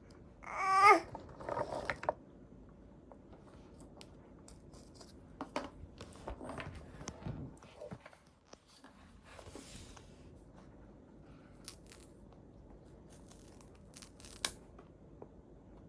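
A baby's short, high-pitched wavering squeal about a second in, with a softer one just after. Then quiet eating noises: chewing, lip smacks and small clicks, with a few soft crunchy rustles.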